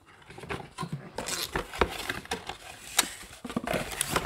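Handling noise of household items being moved about: rustling of folded cloth and packaging with irregular light knocks and clicks, the sharpest about three seconds in and near the end.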